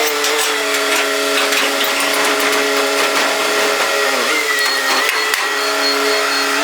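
A small power tool's motor running with a steady whine, its pitch dipping briefly and recovering about four seconds in.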